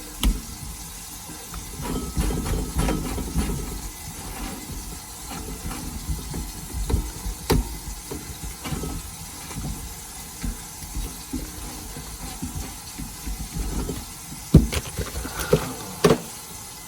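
Irregular clunks, knocks and low rumbles from a jammed garbage disposal being worked loose, with a few sharp clicks, two of the loudest near the end.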